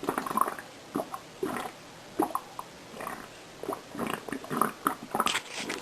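Fart-like noises made with a person's stomach: a string of short, irregular squelches with brief pauses between them.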